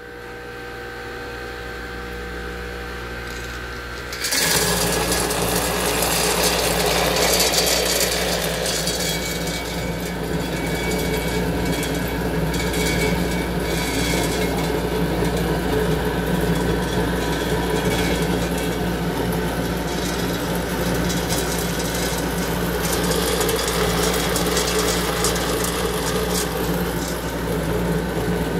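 Agmac PPA-05 colloid-mill emulsifier's electric motor starting up to a steady hum. About four seconds in it turns to a louder, rougher grinding as nuts are milled into paste, and this continues steadily.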